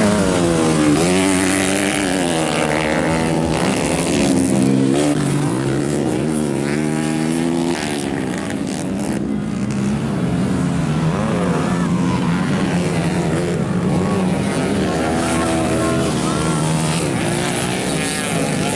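Motocross dirt bike engines revving hard as several bikes race along a dirt track. The engine pitch climbs and drops again and again as the riders accelerate and shift gears.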